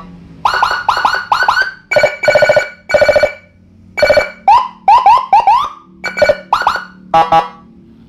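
Custom police-escort siren kit (Whelen Dozer-style IC kit, 30-watt module driving a 15-watt speaker) sounded in short taps: quick rising chirps alternate with brief flat horn blasts, a string of loud bursts with short gaps between them.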